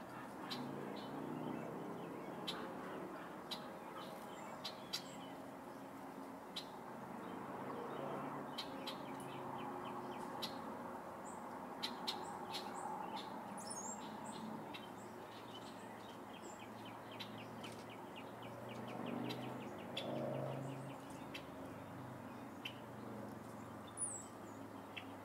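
Outdoor backyard sound with small birds chirping: scattered short, high chirps and a couple of quick sweeping calls over a soft, low background rumble.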